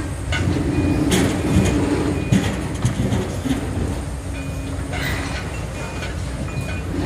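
Long-reach demolition excavators at work: their engines run with a steady low drone while the crusher jaws break concrete, giving irregular cracks, knocks and clatter of falling debris.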